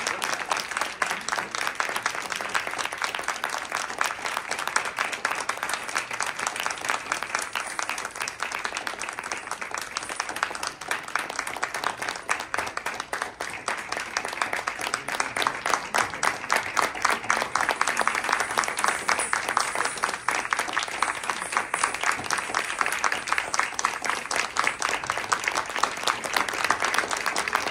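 An audience applauding: dense, continuous clapping that grows a little louder about halfway through.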